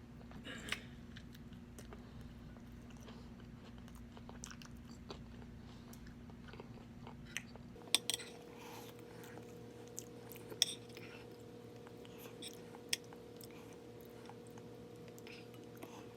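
Close-miked chewing and mouth sounds of a person eating spicy pork adobo, with a few sharp clicks scattered through. A steady low hum underneath shifts in pitch about halfway through.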